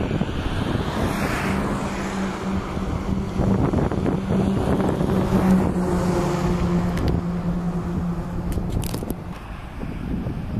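Boeing 747-400's four jet engines at takeoff thrust during the takeoff roll: a steady, loud rumbling roar with a low hum running through it, strongest in the middle and easing slightly near the end. Wind buffets the microphone, with a few short crackles near the end.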